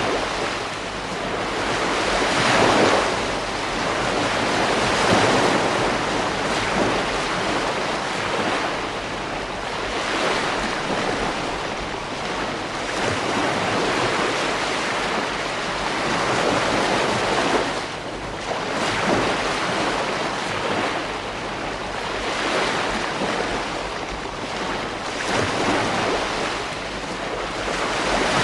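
Ocean waves breaking and washing up a beach, one surge of surf every few seconds over a continuous rush, with some wind buffeting the microphone.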